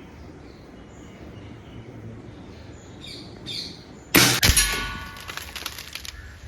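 A .22 Weihrauch HW80 spring-piston air rifle firing once, about four seconds in: a sharp crack followed by a metallic ring that fades over a second or so.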